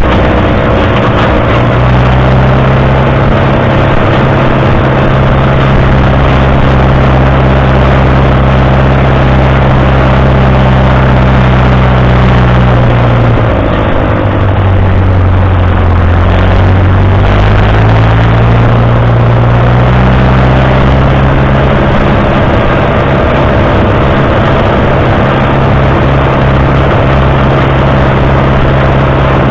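Fordson Super Major tractor's four-cylinder diesel engine running steadily as the tractor drives along. About halfway through, the engine speed dips for a few seconds, then climbs back to its earlier pitch.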